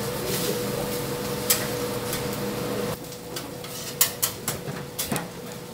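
Bamboo steamer baskets being handled and set down on a steel steamer tray: a few knocks and clatters in quick succession near the end, over a steady background hum.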